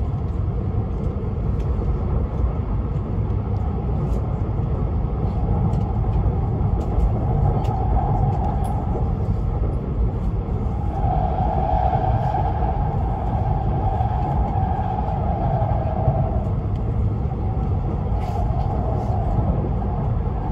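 Running noise of a Tohoku Shinkansen Hayabusa train at speed, heard inside the carriage: a steady low rumble with a humming tone that swells and fades several times, loudest around the middle.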